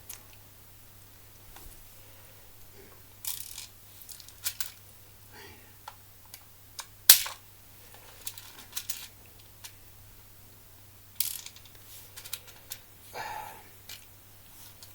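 Clicks and short rattles of a spring-powered BB rifle being handled and loaded with BBs, with one sharp, loud click about seven seconds in.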